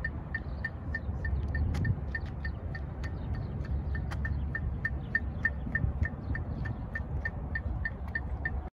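Metronome clicking a fast, steady beat of about three clicks a second, set as the tempo for a marching jazz run, over a low rumble.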